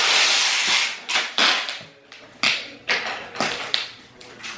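Packing tape ripping off the roll onto cardboard moving boxes: one long pull about a second long, then a string of shorter, sharp pulls.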